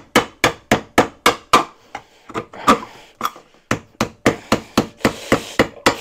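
Rapid, repeated blows of a metal multi-tool's saw blade stabbing down onto the lid of a rusted steel can, about four hits a second, slowing to a few scattered hits in the middle before picking up again. The blade is not cutting through the lid.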